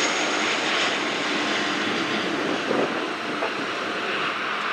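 An airliner's engines flying past, a steady rushing noise.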